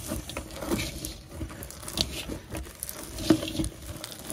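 A spoon stirring puffed paddy rice (khoi) with sugarcane jaggery in a steel bowl: a crunchy rustle of the grains with irregular scrapes and knocks against the metal, the sharpest knock about three seconds in.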